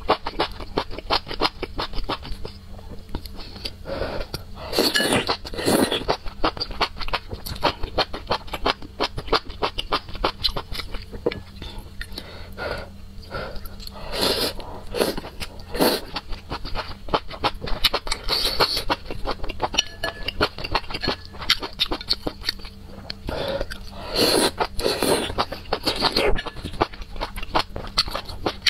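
Close-miked eating of noodles from a bowl of soup: constant wet chewing and mouth clicks, with several louder slurps about four, fourteen and twenty-four seconds in.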